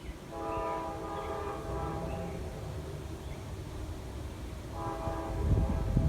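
Nathan K5LA multi-chime air horn on a GE Dash 9 locomotive sounding twice, a blast of under two seconds and then a shorter one. Near the end the locomotives' diesel engines come in loud and low, working at full throttle up a steep grade.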